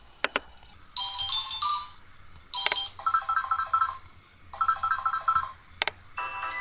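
Samsung phone ringtone previews: short electronic melodies play one after another from the phone's speaker, each cut off as the next is chosen. Sharp touch clicks from taps on the screen fall between them.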